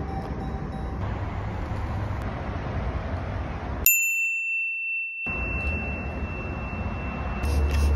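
A single bright bell ding, an added sound effect, about four seconds in. It rings on as a long fading tone while the other sound drops out for over a second, with a low steady rumble before and after.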